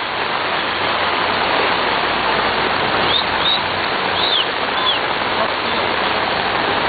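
Steady hiss of heavy rain and floodwater rushing along a flooded street, with a few short high chirps about halfway through.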